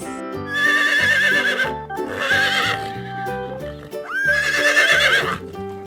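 Horse whinnying three times, each neigh with a quavering, trembling pitch, over light background music.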